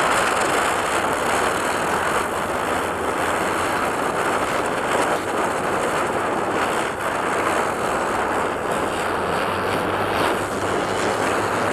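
Ground spinner fireworks (chakri) whirling on the ground and spraying sparks, with a steady hiss that holds at the same level throughout.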